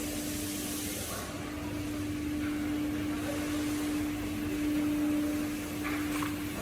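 Industrial machinery running steadily: a constant mid-pitched hum over an even hiss, with a brief break about a second in.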